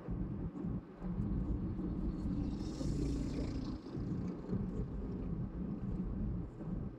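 Perodua Bezza driving on a city road: a steady low rumble of engine and tyre noise, with a brief rise of hiss about three seconds in.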